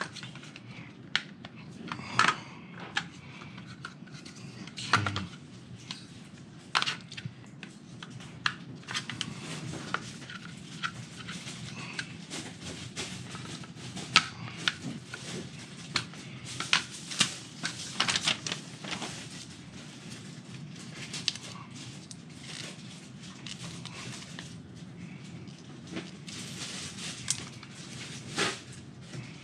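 Hard plastic roof-rack foot parts clicking and knocking as they are handled and fitted together, in irregular sharp clicks over a steady low hum.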